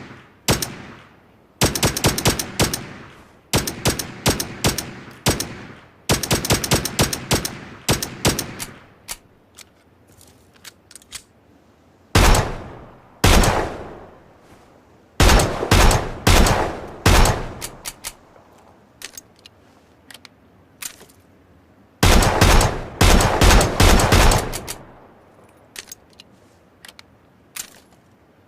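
Gunfire sound effects: several bursts of rapid automatic fire. Two single shots come about halfway through, then more bursts. Each shot has a fading echo tail, with short quiet gaps between the volleys.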